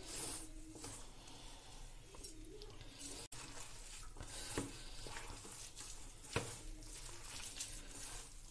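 Thick gram-flour and onion pakora batter being mixed by hand in a stainless-steel bowl: soft, wet squishing and stirring, with a few brief taps, the sharpest about six and a half seconds in.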